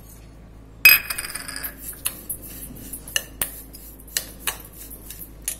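Steel spoon clanking and clinking against a stainless steel bowl while stirring grated dry coconut and sugar: one loud clank with a brief ring about a second in, then light irregular clinks.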